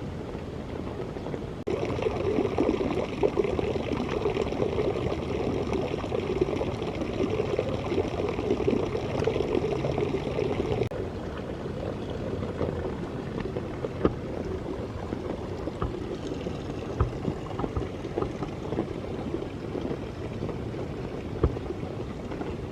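Steady rain falling, with many individual drops ticking. It turns louder suddenly about two seconds in, falls back suddenly about eleven seconds in, and a few louder single drips stand out later.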